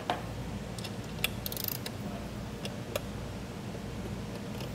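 Small 8mm wrench tightening an acorn nut on a metal fitting: a few light metal clicks and a short rattle of clicks about a second and a half in, over a steady low hum.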